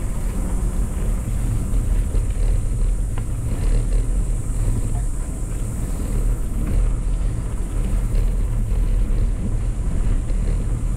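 Schwinn mountain bike rolling along a packed-dirt trail: a steady low rumble from the knobby tyres running over the ground and air rushing past the microphone.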